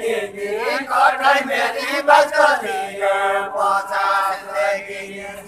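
Men's voices singing a Deuda folk song unaccompanied, in long, drawn-out chanted lines.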